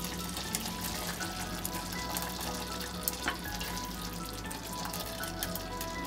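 Thick corn soup simmering in an uncovered pot, a steady crackle of bubbles popping, with a ladle stirring through it and a few sharp clicks. Background music plays throughout.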